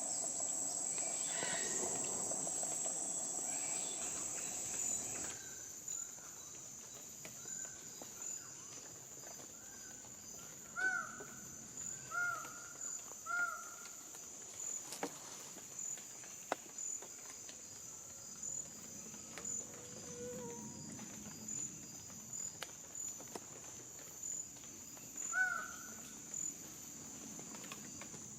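Forest ambience: insects droning steadily at a high pitch, which drops a few seconds in to a quieter, evenly pulsing insect call. A bird gives short clear notes that rise and fall, three in a row about halfway through and one more near the end.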